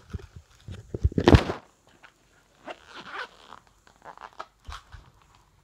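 Rustling and scraping of a phone being handled and moved against bedding, in short irregular rasps with a few clicks; the loudest rasp comes about a second in.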